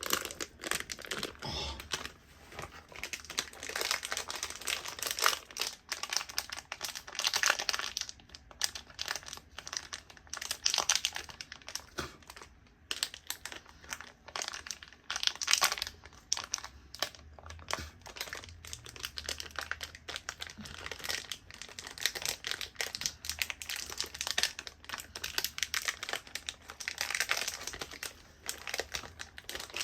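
Trading-card pack wrappers crinkling and being torn open, a dense run of irregular crackles and rustles as packs and cards are handled.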